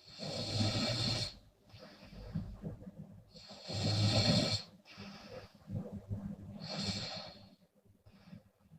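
A woman snoring in her sleep: three loud snores about three seconds apart, with quieter breaths between them.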